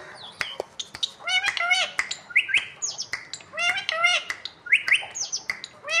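Indian ringneck parrot making a series of short, high-pitched calls in clusters, some sharply rising, with sharp clicks in between.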